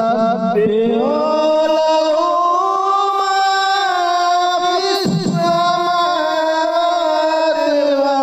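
A voice singing without instruments, holding long notes that slide slowly up and down in pitch in a chant-like melody.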